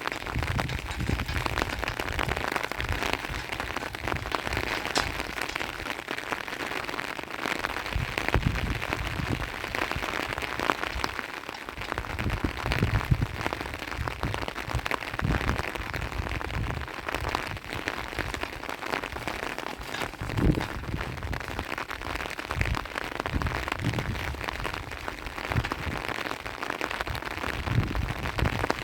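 Steady rain falling, with many small drop clicks and irregular low thumps.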